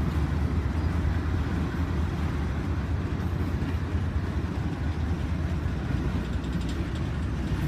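Norfolk Southern freight train rolling through the yard, a steady low rumble.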